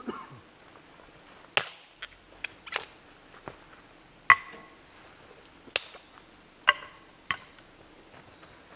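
Firewood being chopped by hand: a series of about nine sharp, irregularly spaced knocks, a few with a brief ringing tone, the loudest about four seconds in.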